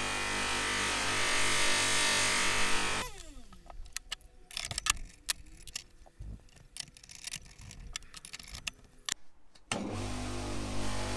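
Bench polishing machine running with a hammer head pressed against its buffing wheel, then switched off about three seconds in, its motor winding down with a falling pitch. A run of sharp metal clicks and knocks follows as the wheel is changed on the spindle, and near the end the motor starts again and runs steadily.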